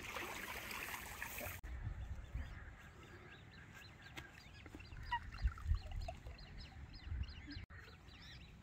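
Birds calling around a pond, many short chirps over a low rumble of wind on the microphone, with a few louder low thumps partway through. A hissing noise fills the first second and a half and cuts off abruptly.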